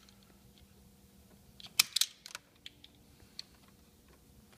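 Pistol-grip automatic wire stripper clamping and springing open on a wire end: a quick cluster of sharp clicks about two seconds in, then a few lighter clicks.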